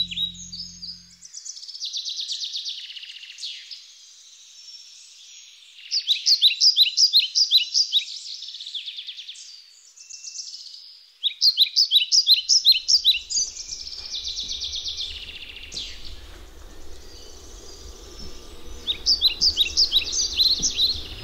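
Songbirds singing: repeated phrases of quick, high chirps, loudest in three bursts. A low rumble comes in about halfway through.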